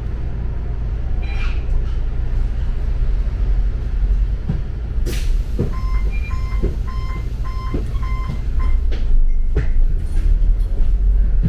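Double-decker bus running, with a steady low engine and road rumble heard from inside. About five seconds in there is a sharp click, followed by a run of about eight quick electronic beeps lasting about three seconds.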